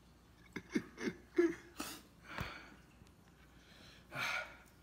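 A man's short breathy vocal sounds: a few quick low ones in the first second and a half, then a louder breath near the end, with a single knock about halfway through.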